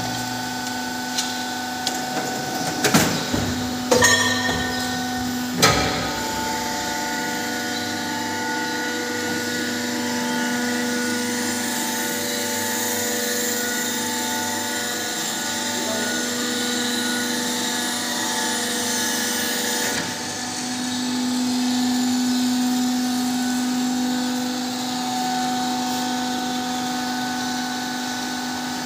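Plastic injection moulding machine running with a steady multi-tone machine hum. Several sharp metallic knocks come in the first six seconds, and the hum swells briefly after about twenty seconds.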